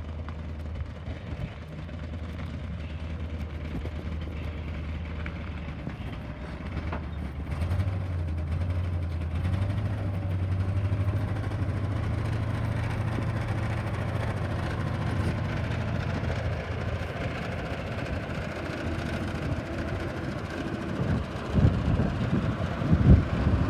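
1986 Chevrolet C60 truck's engine running at idle with a steady low hum, its speed picking up about eight seconds in and settling back down after about sixteen seconds. Wind buffets the microphone near the end.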